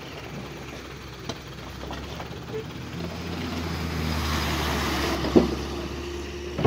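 Trucks driving slowly past on a gravel road: a low, steady engine note with tyre-on-gravel noise that swells about four seconds in and eases off near the end. A short sharp knock comes about five seconds in.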